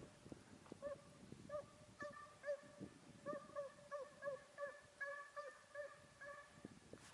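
Estonian hound baying on a brown hare's trail: a faint, rapid run of short yelping calls, two or three a second, the voice a hunting hound gives while it chases the hare.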